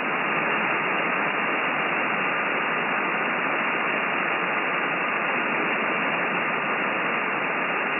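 Steady band-noise hiss from a FLEX-1500 transceiver's receiver on single sideband, with no station transmitting, and a faint steady whistle running through it.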